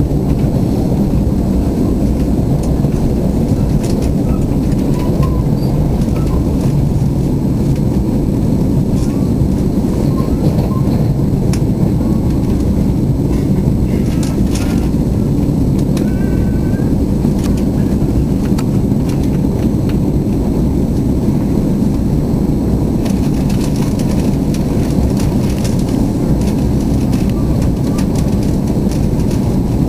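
Steady low rumble of a commuter train in motion, heard from inside the passenger car: wheels running on the rails and the car body carrying the noise.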